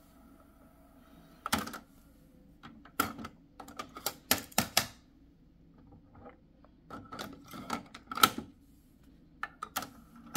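Kenwood KX-3060 cassette deck's transport mechanism: a faint whine stops with a clunk about one and a half seconds in, then clusters of sharp clicks and knocks as the cassette door is ejected, a cassette is handled and loaded, and the door is snapped shut.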